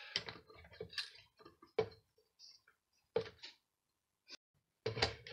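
Wooden dowel being fitted and tightened into the chuck of a small hobby lathe, with the motor off: about half a dozen separate clicks and light knocks with quiet gaps between them.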